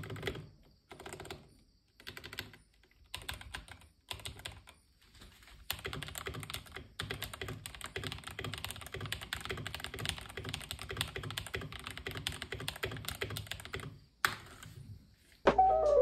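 Redragon Caster Pro mechanical keyboard being typed on: a few short separate runs of keystrokes, then about eight seconds of fast, continuous typing that stops a second or two before the end.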